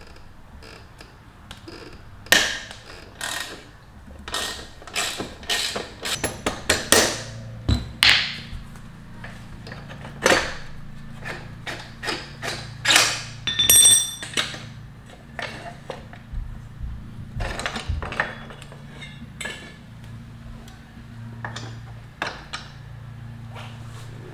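Irregular metallic clicks and clanks of a wrench and metal parts as the rear axle nut is undone and the axle and rear wheel are worked off a small motorcycle. A brief ringing metal note comes about two-thirds through.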